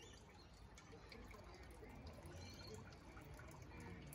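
Faint trickling and dripping of water circulating through an aquaponics fish-tank and grow-bed system.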